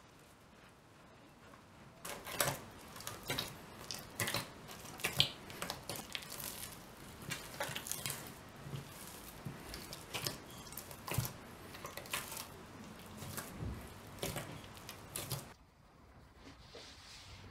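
Hands kneading a wheat-flour-and-water dough in a glass bowl: irregular wet squelching and sticky crackling, starting about two seconds in and stopping shortly before the end.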